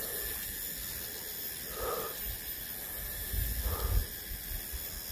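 Person walking uphill on a forest path: irregular low thuds of steps and handling and a couple of short breaths, over a faint steady high-pitched insect drone.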